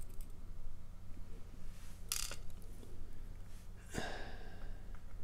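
Quiet handling of a disassembled padlock: a short rustle about two seconds in, then a single light metallic click about four seconds in as tweezers set a lock pin down on the plastic pin tray, over a steady low hum.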